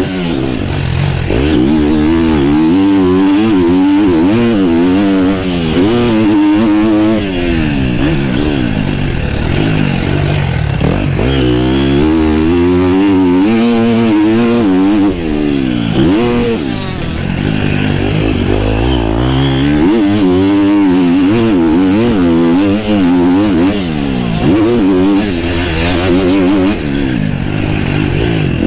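KTM motocross bike's engine, heard close up from on the bike, revving up and falling off again and again as the rider works the throttle and shifts through gears around the track.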